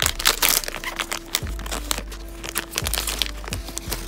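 Foil Pokémon booster pack wrapper crinkling with many sharp, irregular crackles as it is handled and torn open.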